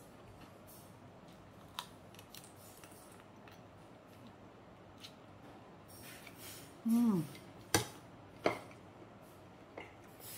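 A person eating fried prawn with rice by hand: quiet chewing with a few sharp clicks, and a short falling hum about seven seconds in.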